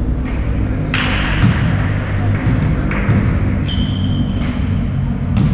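Basketball game in a gym: a ball bouncing on the court and sneakers squeaking in short high chirps, over a steady low hubbub in the hall.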